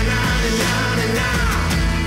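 Background music: a pop-rock song with a singer over a steady beat.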